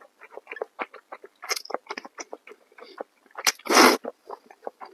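Noodles being slurped and chewed close to the microphone: a run of small wet mouth clicks, with a loud slurp about four seconds in.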